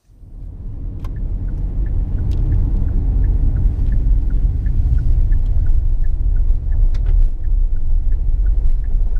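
Car driving along a road, heard from inside the cabin: a steady low rumble of engine and tyres that fades in over the first second, with a few faint clicks.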